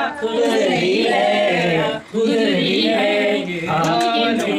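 Several people singing a Hindi film song together without accompaniment, the phrases breaking off briefly about two seconds in.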